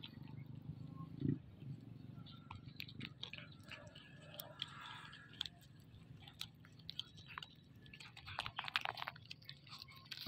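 A kitten chewing and picking at fish and rice, a run of small wet clicks and crunches that comes thickest near the end.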